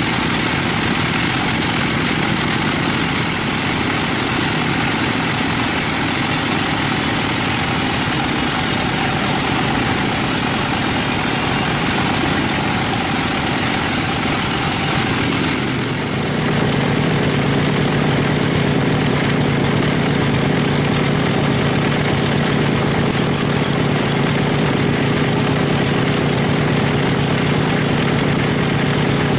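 Sawmill machinery running steadily with a constant engine-like drone. About halfway through the sound changes abruptly to a lower, steadier hum.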